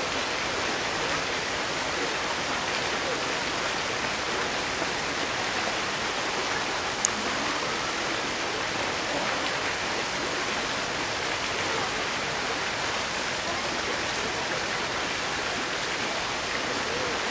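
Steady rushing noise with an even level throughout, and a single sharp click about seven seconds in.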